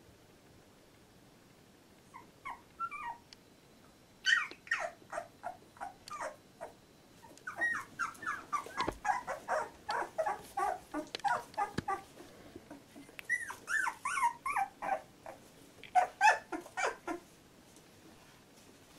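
Two-week-old Labrador retriever puppies crying in many short, high, falling squeaks and whines. A few faint cries come about two seconds in, then louder bouts run on until near the end.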